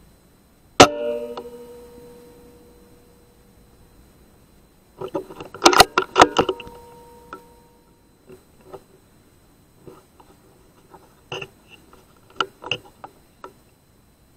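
Air rifle shot about a second in: a sharp crack followed by a ringing tone that fades over a second or so. A cluster of clicks and clacks with a brief ring comes around five to seven seconds in, then scattered lighter clicks.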